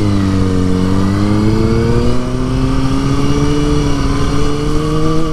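Sport motorcycle engine pulling away under throttle, its pitch climbing slowly and steadily as it accelerates in gear.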